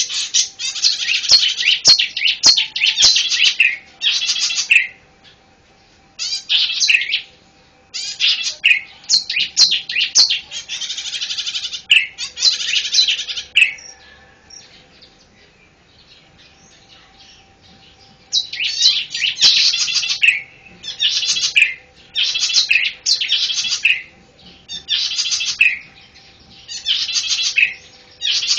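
Zitting cisticola (cici padi) singing in quick, high, chattering phrases of about one to two seconds each, separated by short pauses, with a longer pause about halfway through.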